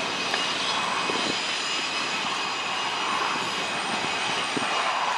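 Steady running noise of a freight train's diesel locomotives and cars.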